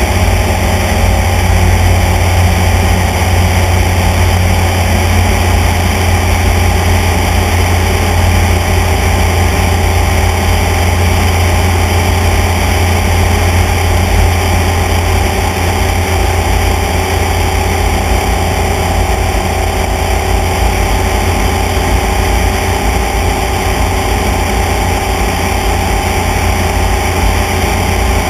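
Light aircraft's engine running steadily in cruising flight, a loud, even low drone with a hiss of rushing air over it.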